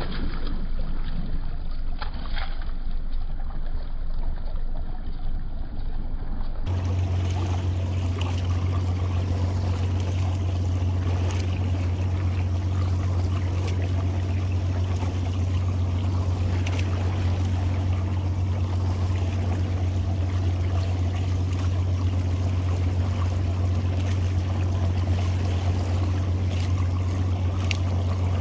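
Boat motor running steadily at low speed with water splashing and trickling along the hull as the boat runs a trotline. About seven seconds in, a steady low drone takes over.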